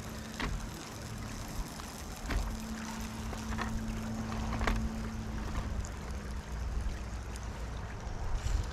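Steady rushing of a flowing river, with low wind rumble on the microphone and a faint steady hum. A few light clicks and taps of utensils and a plastic container are handled over it.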